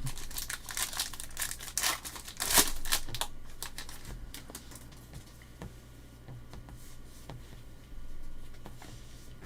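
A foil trading-card pack wrapper being torn open and crinkled, a dense crackling in the first three seconds, then only a few faint rustles and clicks as the cards are handled.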